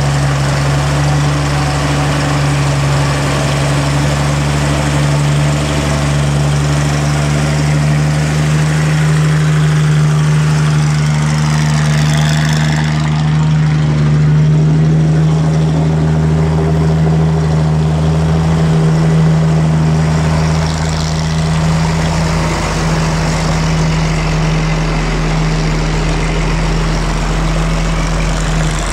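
Heavy diesel truck engine idling steadily close by, a deep continuous hum, while other trucks and cars pass slowly.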